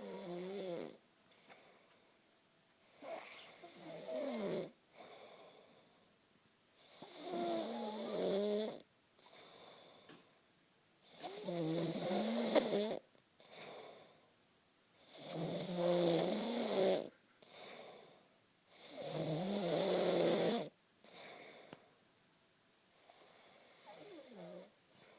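Heavy snoring: six loud, pitched, rattling snores about four seconds apart, each with a softer breath between, the last one fainter.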